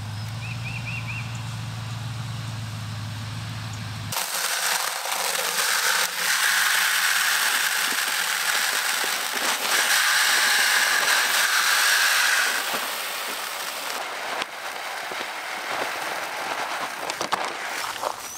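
A pickup truck's engine idling with a steady low hum, then a steady rattling hiss of seed pouring from a bag into a plastic bucket, followed by softer scattered pattering and clicks as the seed is thrown by hand onto tilled soil.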